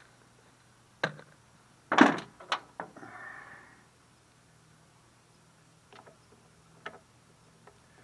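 Hand tools and small metal parts being handled while screws are fitted on a push mower's engine. There are a few sharp knocks and clicks, the loudest about two seconds in, a short scrape just after, then a few light ticks.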